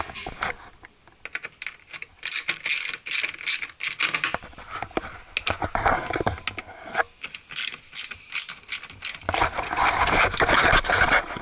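Ratchet clicking in quick runs, with short pauses, as screws are backed out of the lower edge of a door trim panel.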